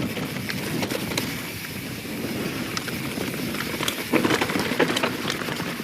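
YT Jeffsy 27 mountain bike descending a steep, rooty dirt trail: tyres rumbling over dirt and roots, with many sharp clicks and rattles from the bike. Louder knocks come about four seconds in.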